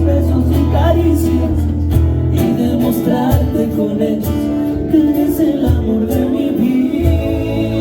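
A Mexican song playing: a singer's voice over strummed guitar and a steady bass line.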